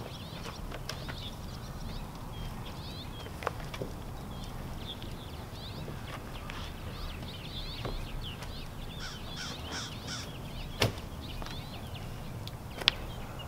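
Wild birds chirping in quick, repeated calls, with two sharp clicks, one about eleven seconds in and one near the end.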